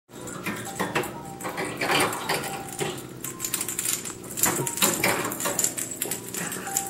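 A ferret scrabbling about in the plastic tray of its wire cage, making a busy run of irregular clicks, knocks and rattles.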